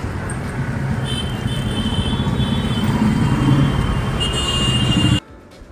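Busy street traffic: scooters and cars passing in a steady din, with high tones coming and going. It cuts off suddenly about five seconds in.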